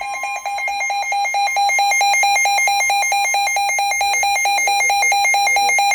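Weather radio receiver sounding its alert alarm for a flash flood warning: a loud, high-pitched, rapidly pulsing beep.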